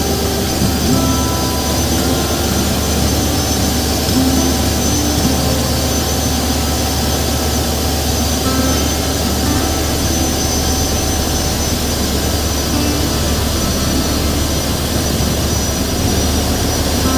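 Steady, loud drone of a motorboat's engine, mixed with the rush of wind and river water.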